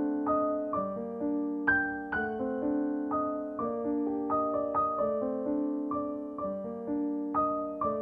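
Background piano music: a gentle melody of struck notes, each ringing on as the next is played.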